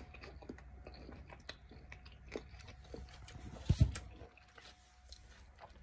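A person chewing a bite of crunchy fresh cucumber snack (pepino loco) close to the microphone: small crunches and mouth clicks throughout, with a louder low bump a little under four seconds in.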